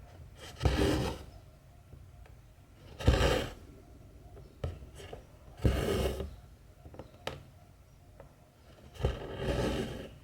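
Cotton thread drawn through 14-count cross-stitch fabric, a scratchy swish four times, about every two and a half to three seconds, with light ticks between as the needle pierces the cloth.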